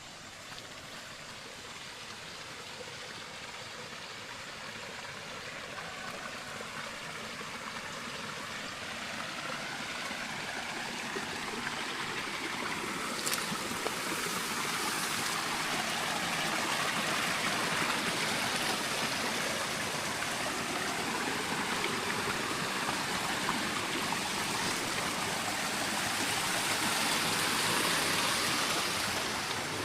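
Flowing water rushing steadily, like a small stream or channel, growing louder over the first half and easing off a little near the end.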